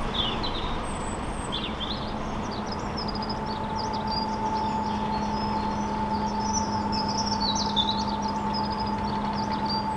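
Songbirds chirping and singing over a steady mechanical hum from the moving narrowboat, with a higher steady whine joining the hum about three and a half seconds in.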